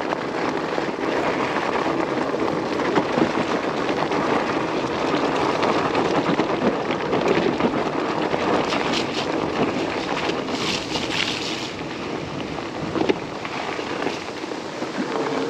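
Fat tires of an electric bike rolling over gravel and wet dirt: a steady rough rush with many small crunches and clicks, mixed with wind rushing past while riding.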